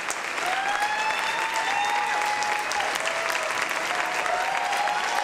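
Audience applauding and cheering a curtain call: dense clapping with several long, rising whoops from the crowd over it.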